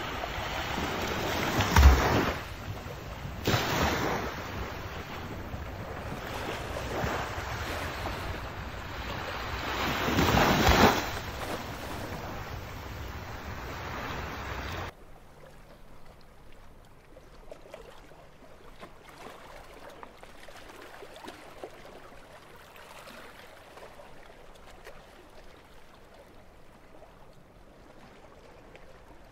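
Small waves washing on a beach under wind noise on the microphone, with louder gusts about 2, 4 and 10 seconds in. About halfway through it cuts off abruptly to a much fainter, steady hiss.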